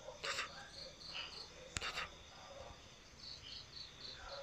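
Night insects, crickets by their sound, chirping: a steady high trill with runs of short chirps at about four a second. A sharp click about two seconds in and brief rustles near the start are the loudest moments.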